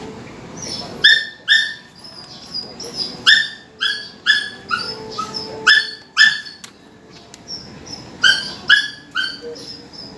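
A small dog yipping: about a dozen short, high-pitched yips in three bunches.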